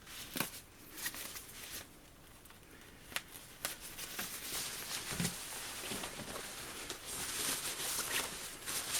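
Backpack fabric rustling and scraping as it is handled and worked open by hand, with scattered small clicks early on giving way to a continuous rustle from about halfway.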